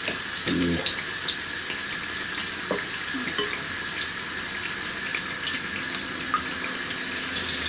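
Battered potato slices deep-frying in hot vegetable oil in a karahi: a steady sizzle with frequent small crackles and pops.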